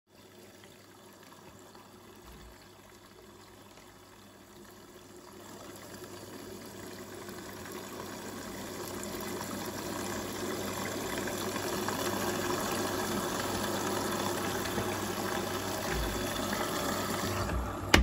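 Liquid fabric conditioner pouring from a bottle into the dispenser drawer of a Marq front-loading washing machine, a steady trickle that grows louder over the first ten seconds and then holds. A short sharp click right at the end.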